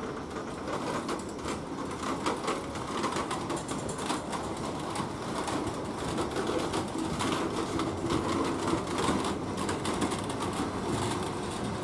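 Passenger coaches rolling past as the departing train gathers speed, with steady running noise and irregular clicks and rattles from the wheels and bogies on the rails.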